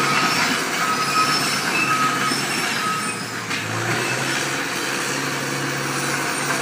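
Dresser TD-8E crawler dozer working, its diesel engine running steadily under load with short squeaks in the first half.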